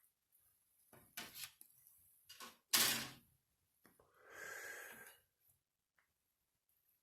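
Model kit box and its contents being handled: a few short knocks and scrapes, the loudest about three seconds in, then a smoother sliding or rustling sound lasting about a second.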